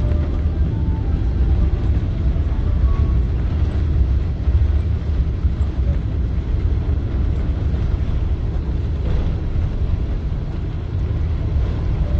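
Steady low rumble of a Boeing 777-300 heard from inside the passenger cabin: engine and airflow noise around the fuselage.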